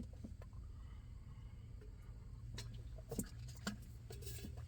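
Quiet room tone: a faint steady low hum, with a few soft clicks in the second half.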